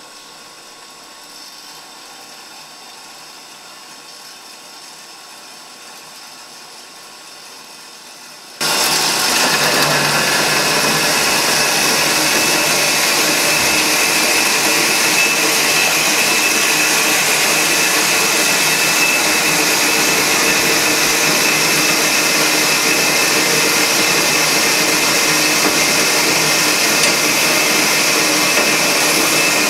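Shop-built horizontal metal-cutting bandsaw with flood coolant. At first there is only a faint steady trickling hiss. About eight seconds in, a loud, steady machine noise with a hum of several tones starts abruptly: the saw running and cutting through metal bar stock.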